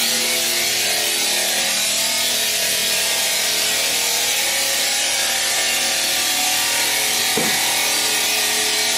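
Bridge stone cutting machine's water-cooled diamond circular blade cutting steadily through a granite slab: a constant hiss of blade in stone and spraying water over several steady motor tones.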